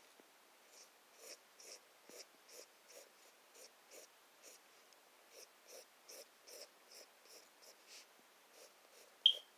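A pen scratching on lined notebook paper in quick, even drawing strokes, roughly two or three a second, faint. Near the end there is one brief sharp high-pitched sound, the loudest moment.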